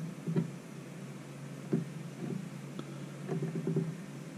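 Light clicks and rustles of an alligator-clip test lead being handled on a small ceramic capacitor, a few scattered taps with a quick cluster near the end, over a steady low hum.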